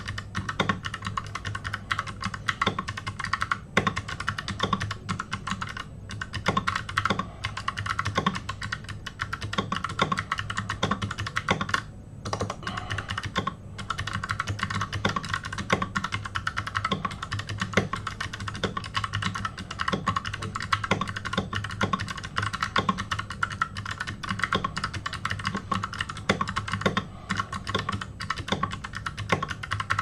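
Fast, continuous typing on a computer keyboard, keys clicking several times a second with short breaks about twelve seconds in, over a steady low hum.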